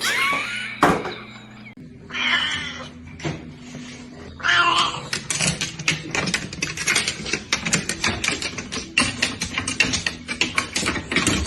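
Cat meowing, a short bending call near the start and another about four and a half seconds in, followed by a long run of rapid sharp clicks and scratchy rattling.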